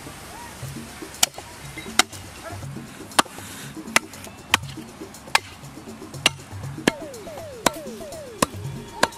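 Knife chopping on a wooden cutting board: sharp, even chops about one every three-quarters of a second, with background music.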